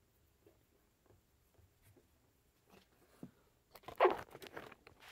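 Faint taps and rubbing of fingers pressing a vinyl sticker onto window glass, then a louder rubbing rustle close to the microphone about four seconds in.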